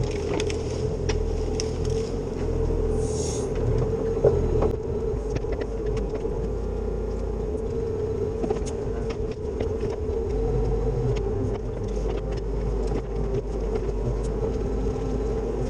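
Cat 304 CR mini excavator running steadily under load, a constant engine rumble with a steady tone over it, with scattered sharp knocks and cracks as the machine works through the cleared timber.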